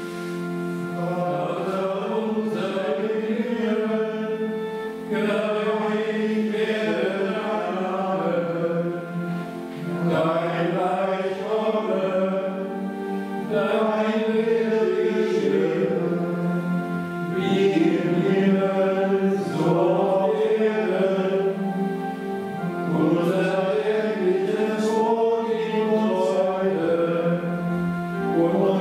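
Gregorian chant sung in German, one melodic line in phrases over a steady held low drone.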